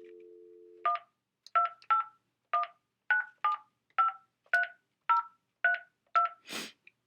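Telephone dial tone that stops about a second in, when a number is dialed on a touch-tone keypad: eleven short DTMF beeps, each a pair of tones. A brief burst of noise near the end.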